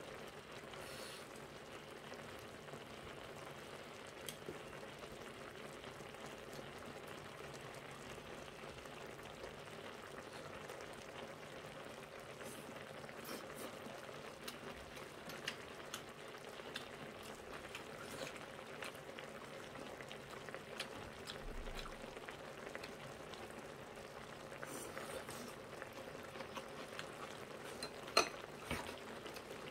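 Braised aged-kimchi stew with pork bubbling steadily in a pan on the table, a low, even simmering hiss. Scattered light clicks of chopsticks against dishes, with a sharper clack near the end.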